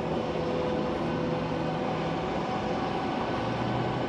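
Semi truck's diesel engine and road noise droning steadily inside the cab while driving, the engine's pitch dropping slightly about three seconds in.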